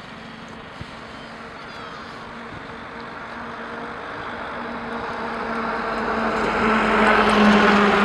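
A motor vehicle's engine drawing near: a steady hum that grows louder from about halfway through and peaks near the end.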